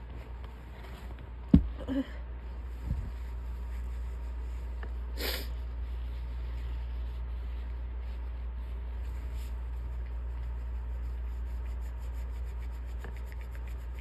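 Rubbing and rustling at the nose with a tissue. A single sharp, loud sound comes about one and a half seconds in, and a brief hiss a little past five seconds.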